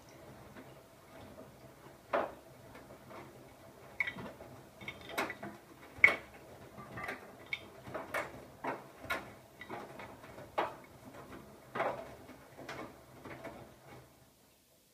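Siemens iQ700 front-loading washing machine in its wash phase: a steady low motor hum under irregular clicks and knocks as the load tumbles in the turning drum. The sound cuts off suddenly near the end.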